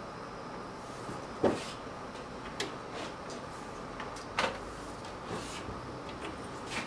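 Scattered light knocks and clicks from hands working a stop-motion set-up, the loudest about a second and a half in, over a steady room hum.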